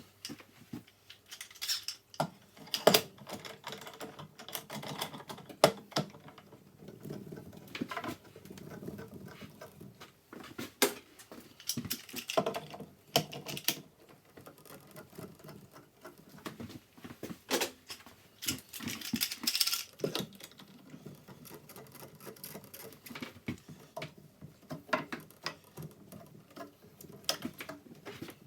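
Irregular clicks, knocks and short scrapes of hands working with wood and tools, with no machine running. The sharpest knocks come about three and six seconds in.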